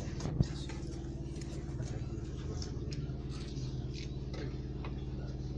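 A steady low hum, with scattered light clicks and one sharp knock just after the start.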